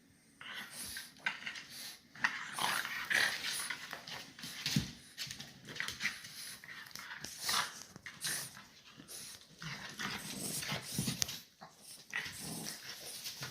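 A dog vocalizing in many short, irregular sounds one after another.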